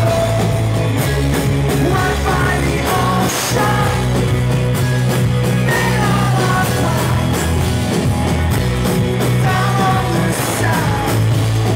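Live rock band playing loud: a singer's voice over held bass notes, drums and guitar, picked up from the audience.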